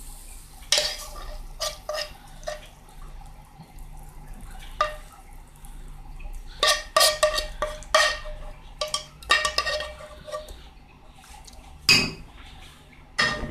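Metal spoon scraping and clinking against a nonstick frying pan as food is spooned out of it. The clinks come in short clusters with a brief ring, thickest around seven to ten seconds in, with one loudest knock near the end.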